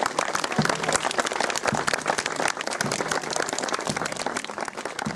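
Crowd applauding, many hands clapping at once, slowly growing quieter toward the end.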